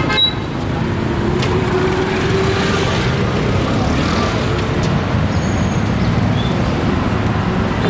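Busy street-market ambience: a steady rumble of passing motor traffic, with faint voices in the background.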